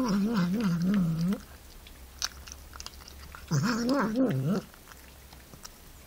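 Sphynx cat eating raw meat and vocalizing with its mouth in the food: two stretches of a low, wavering warble that wobbles up and down in pitch, one at the start and one about three and a half seconds in. Soft chewing clicks come between them.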